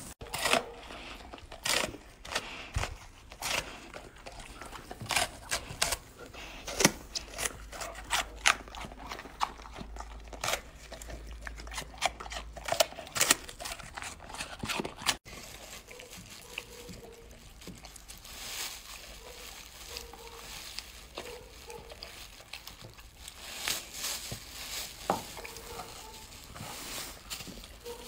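A golden retriever eating. Through the first half it crunches crisp napa cabbage and apple in many sharp bites. After a cut about halfway through, the chewing is softer and more scattered.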